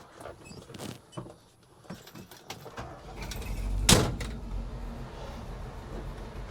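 A few light clicks, then a vehicle engine starts running with a low steady rumble. A single sharp knock, like a door shutting, comes about four seconds in.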